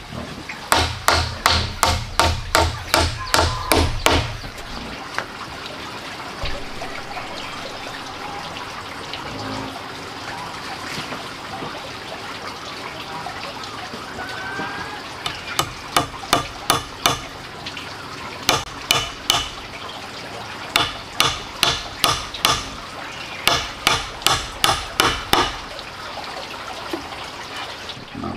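Hammer driving nails into freshly cut wooden poles: runs of sharp strikes, about three a second, one run at the start and several more in the second half. Between the runs, a steady sound of running water.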